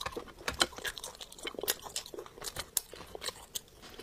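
Cooked hermit crab shell cracking and snapping as it is broken apart by hand and crunched while eating: an irregular run of many sharp clicks and crackles.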